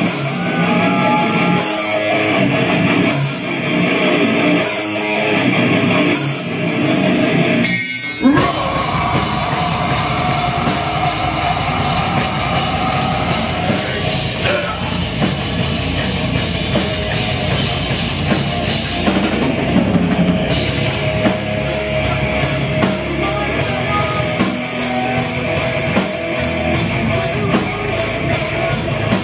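Live heavy metal band playing: distorted electric guitar, bass guitar and drum kit. About eight seconds in the band stops for a moment, then comes back in at full force. In the last third the drums keep a fast, steady beat.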